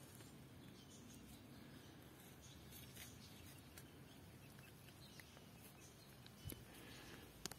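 Near silence: faint room tone with a few scattered light ticks, a soft knock about six and a half seconds in and a sharp click near the end.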